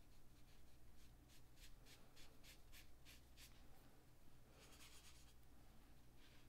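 Faint watercolour brush strokes on sketchbook paper: a quick run of short dabs, about three or four a second, for the first few seconds, then one longer swish about five seconds in.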